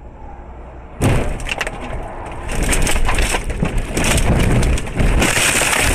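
Car crash heard from inside the cabin: quiet road noise, then about a second in a sudden loud impact as the car goes off the road and overturns. Repeated crunching, banging and rattling follow, with glass breaking among them.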